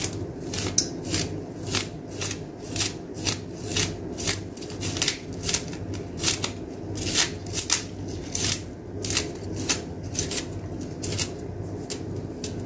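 Scallions being cut with a kitchen knife, the blade tapping a cutting board in a steady run of strokes, about three a second.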